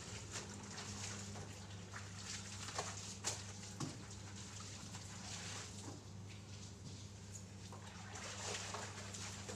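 Water dribbling and splashing at a wall tap, with a few small knocks and clicks of handling, over a steady low hum.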